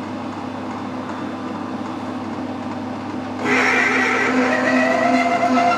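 Metal lathe running with a steady hum, then about three and a half seconds in a 19.75 mm twist drill bites into the spinning stainless steel plate, and a louder, high-pitched whine of several wavering tones sets in as it cuts.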